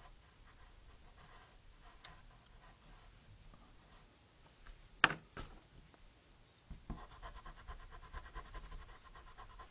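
Pencil scratching on paper in light sketching strokes, with a sharp tap about five seconds in and a quicker, denser run of strokes near the end.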